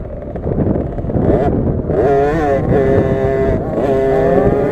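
KTM SX50 minibike's 50cc single-cylinder two-stroke engine under throttle. The pitch climbs about a second in, wavers, then holds level twice near the end as the throttle is held.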